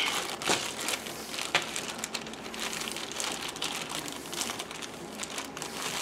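Small plastic bag crinkling as it is handled and opened, with a few light clicks.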